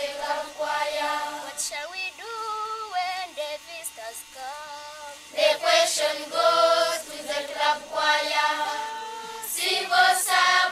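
Ugandan primary-school children singing together as a choir. About two seconds in a single voice carries the line alone, and a few seconds later the full group comes back in.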